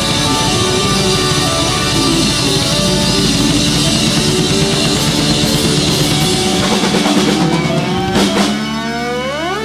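Live progressive-rock band (keyboards, electric guitar, bass and drums) playing the end of a song: held chords over busy drumming. In the last couple of seconds a sound sweeps rapidly upward in pitch.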